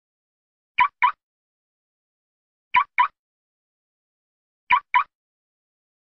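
Car remote-locking confirmation chirps: a quick double chirp, repeated three times about two seconds apart.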